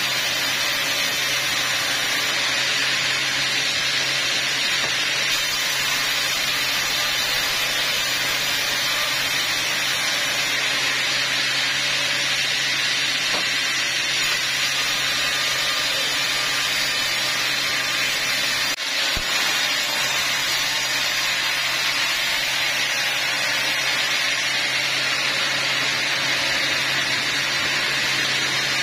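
Large vertical band saw running steadily while a teak log is fed through the blade: a continuous cutting hiss over a steady low motor hum, with a brief dip about nineteen seconds in.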